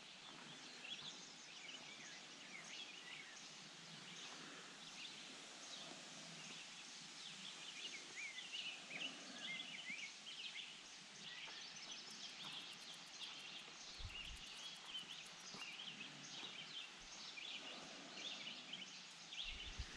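Faint outdoor ambience of songbirds: many short chirps and whistles from several birds over a soft hiss. A very high, fast ticking trill joins for a few seconds midway.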